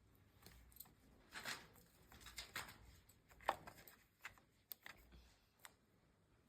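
Faint handling noises: scattered rustles and small clicks of hands working with parts, the sharpest click about three and a half seconds in.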